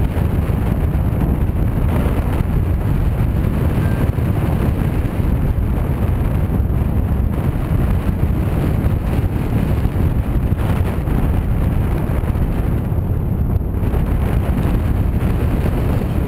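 Wind from paraglider flight buffeting the camera microphone: a loud, steady, deep wind noise.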